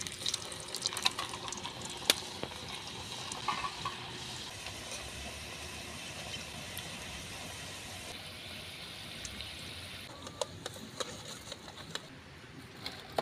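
Samosas deep-frying in hot oil in a metal kadai: a steady sizzle with sharp crackling pops, busiest in the first few seconds and again near the end.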